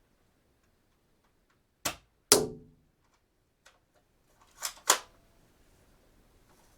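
Dart gun being cocked and shot, twice over. Each time there is a sharp click followed about a third of a second later by a louder snap, and the first snap has a brief ringing tail.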